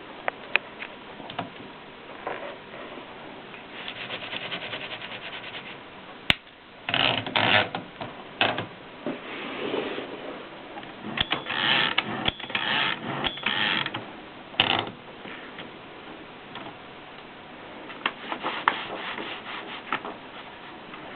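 Triumph Norm 6 typewriter being worked by hand: its mechanism clicks and ratchets, with stretches of rubbing and sliding and a couple of single sharp clacks.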